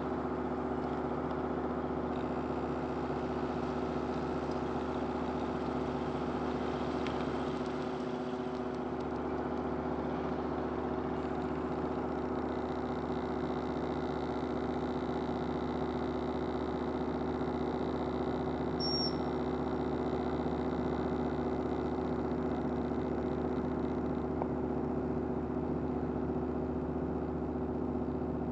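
Steady low mechanical hum of an idling engine, held at a constant pitch with a few unchanging low tones.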